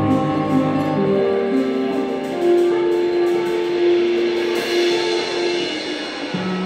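Live jazz band playing: drum kit with cymbals under an electric bass, with long held melody notes, one sustained for about three seconds in the middle, and a new low note coming in near the end.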